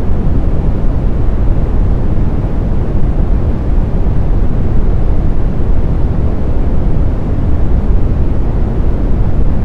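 Steady synthetic brown noise: an even, deep hiss weighted heavily to the low end, with no tones, rhythm or changes.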